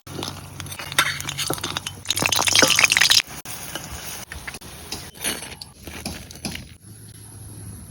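Kitchen cooking sounds: utensils clinking, with a loud burst of dense crackling about two seconds in that lasts about a second.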